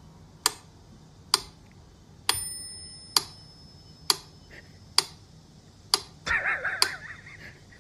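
A clock ticking, evenly, a little faster than once a second. A bell-like ding sounds about two seconds in and rings on as it fades, and a warbling pitched sound comes in near the end.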